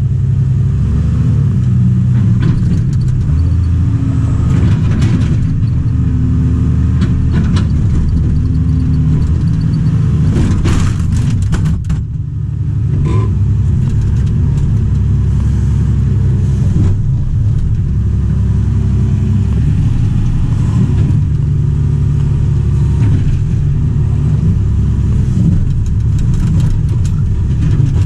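Diesel engine of a 1995 Mitsubishi MS110 track hoe running loud under hydraulic load through a digging cycle in coral rock, its note shifting as the levers are worked. A few sharp knocks come about halfway through, and the engine note dips briefly just after.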